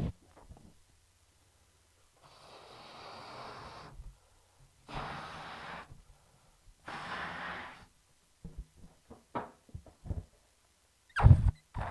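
Air hissing out of a rubber balloon's neck in three releases of about a second or two each, then a few light handling knocks and a loud thump near the end.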